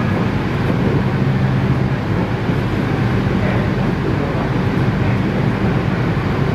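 Cab interior of a Yellow Line monorail train running at low speed: a steady low hum over an even rushing noise.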